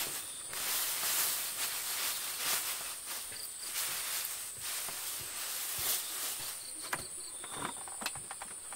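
Steady high-pitched insect drone over swelling, rustling hiss, with a few light clicks and knocks near the end.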